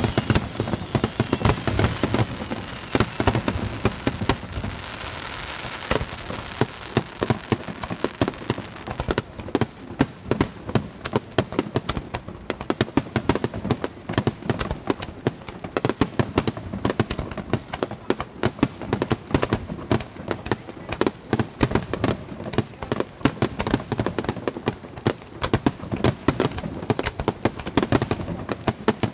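Fireworks display: aerial shells bursting in a rapid, unbroken barrage of bangs and crackles, several a second. Whistling tones rise through the first few seconds.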